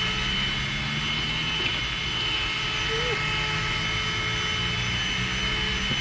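Cordless handheld vacuum cleaner running steadily with a high whine, its crevice nozzle sucking up potting soil from a tabletop.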